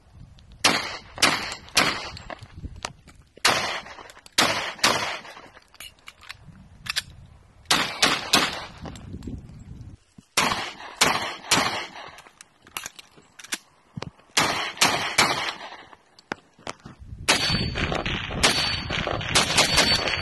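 Pistol shots fired in several quick strings, a dozen or more sharp cracks with short pauses between the strings. Near the end, rumbling wind and handling noise on the microphone rises under the shots.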